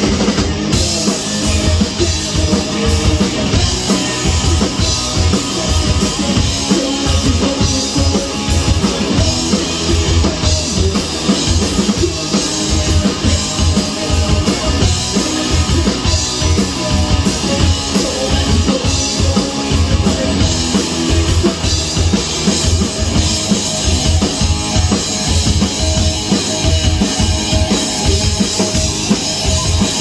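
Live rock band playing loud: electric guitar over a drum kit keeping a driving beat with steady bass drum hits.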